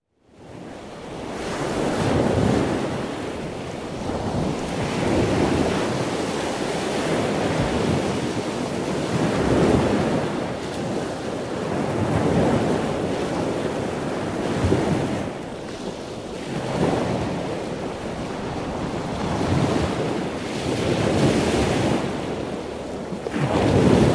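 Ocean surf: waves break and wash in, the rushing swelling and easing every few seconds.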